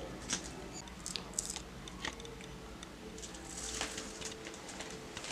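Faint crackling and scattered small clicks as the protective backing is peeled off the adhesive pad of a plastic cabinet catch-and-latch.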